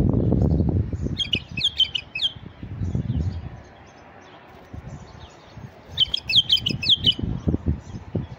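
Male white-eared bulbul singing two short phrases of quick, falling notes, each about a second long, one near the start and one past the middle, over a low rumbling noise.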